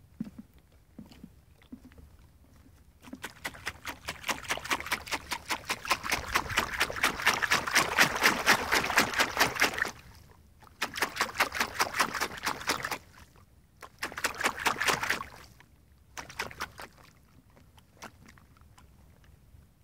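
A dog lapping water close by: quick wet laps in a long run that grows louder, then two shorter runs and a few faint laps.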